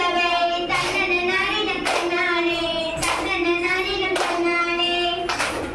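A group of schoolgirls singing a Tamil kummi folk song together, clapping their hands in time about once a second.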